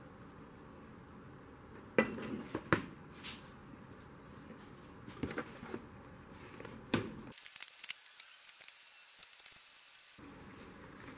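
Tools and metal parts being handled on a workbench: a few sharp, irregular knocks and clinks, the loudest about two seconds in and again near seven seconds in, with fainter ticking in between.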